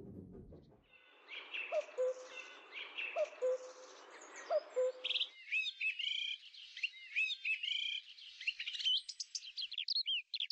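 Birds calling: a short, low hooting call repeats about every second and a half over a soft hiss and higher chirps, then cuts off about five seconds in, leaving a songbird's quick, high chirping notes.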